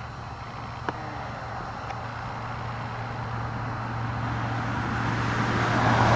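Road traffic: a vehicle approaching on the highway, its noise rising steadily over the last few seconds, over a steady low hum. A single faint click about a second in.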